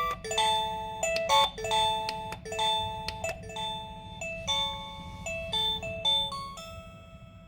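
Background music: a light melody in bell-like notes, a new note about every half second.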